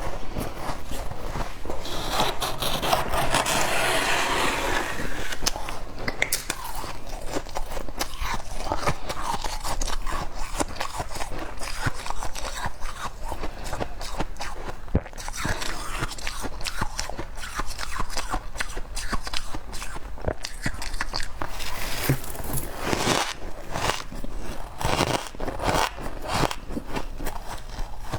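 Soft freezer frost crunching close to the microphone: a dense, continuous run of crisp crackles, with louder flurries about three seconds in and again near the end.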